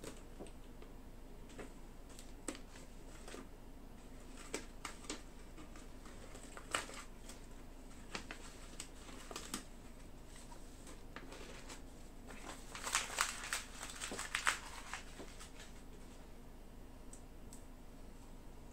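Masking tape and paper being peeled off a painted wooden model ship, scattered crinkles and small rips with a denser flurry of crackling about two-thirds of the way through.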